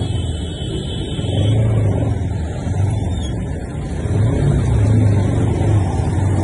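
Bajaj Pulsar RS200's single-cylinder engine running as the motorcycle is ridden, under a loud, steady rush of wind and road noise that swells and eases.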